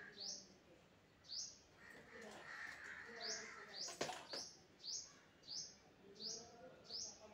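A small bird calling over and over, short high chirps that each drop steeply in pitch, about one a second. A single sharp knock comes about four seconds in.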